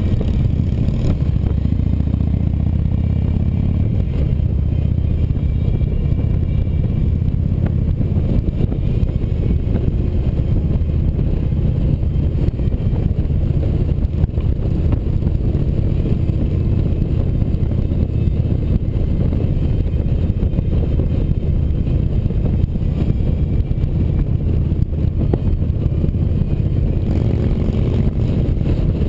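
Harley-Davidson touring motorcycle's V-twin engine running steadily at cruising speed, heard from the rider's seat with wind and road noise mixed in.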